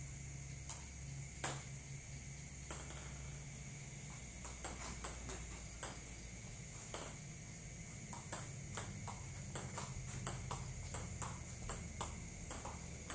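Table tennis rally: sharp clicks of the ball off the paddles and bouncing on the table. The clicks are sparse at first, then come quickly from about four seconds in, over a low steady hum.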